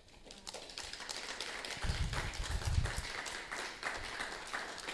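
Congregation applauding: many hands clapping, swelling about two seconds in and tapering off near the end.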